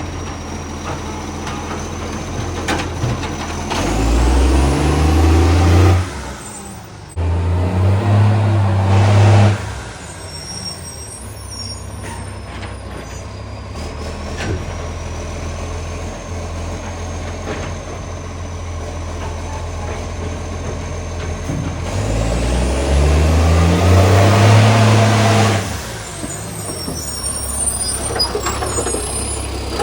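Garbage truck's diesel engine idling and revving up three times, each rev climbing then falling back to idle. The revs are very loud because of a leaking exhaust pipe.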